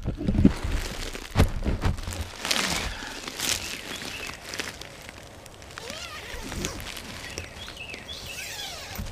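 A person moving about inside a mesh tent: knocks and rustling of the nylon floor and mesh in the first few seconds, then quieter handling as the door zipper is worked closed. Faint bird chirps near the end.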